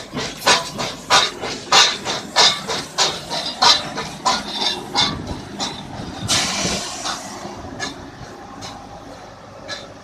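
Oil-fired X class steam locomotive No. 37391 chuffing slowly while it hauls a rake of coaches during shunting, its exhaust beats coming steadily about one and a half a second. About six seconds in, a burst of steam hiss lasts about a second, and the chuffs then fade as the engine draws away.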